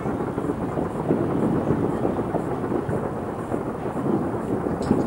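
Distant fireworks barrage: many overlapping bangs blending into a continuous low rumble, with one sharper crack near the end.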